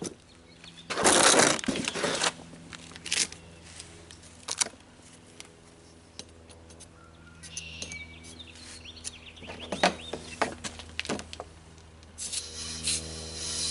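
Compressed air hissing in short bursts into a lawn tractor's tubeless tire as it is checked and filled, with a few sharp clicks in between and a steady low hum underneath. A loud burst of hiss comes about a second in, and a steadier hiss starts near the end.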